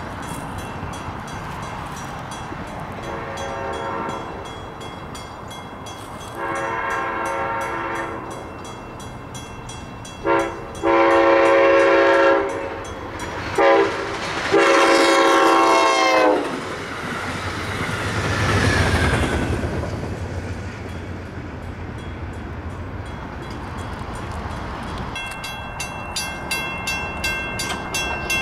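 Passenger train's horn sounding a series of chord blasts as the train approaches, growing louder, ending with a short blast and a long one that falls in pitch as the cab car passes. The low rumble of the train going by follows.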